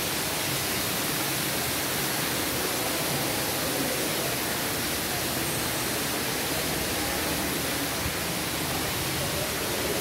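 Man-made waterfall: a steady rush of falling water.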